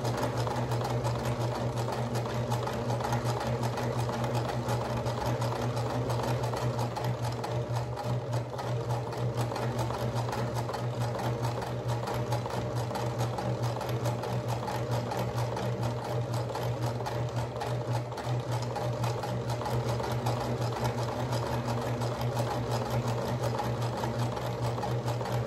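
Electric sewing machine running steadily at a constant speed, its needle mechanism producing an even, rapid hum.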